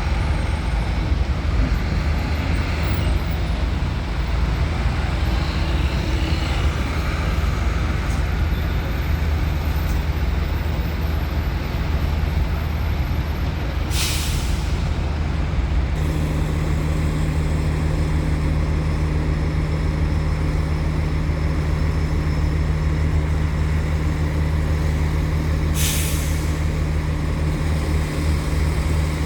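Heavy diesel engines of trucks and buses running in a steady low drone. Two short air-brake hisses cut through, one about halfway and one near the end, and around the first hiss the drone settles into a steadier pitch.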